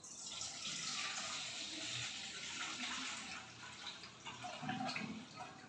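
Milk being poured from a steel milk can through a small strainer into a stainless steel bowl: a steady splashing stream of liquid that thins out in the second half as the pour slows.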